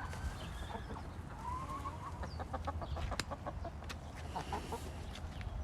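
A flock of chickens clucking, with one drawn-out call about one and a half seconds in, followed by a run of sharp short clicks.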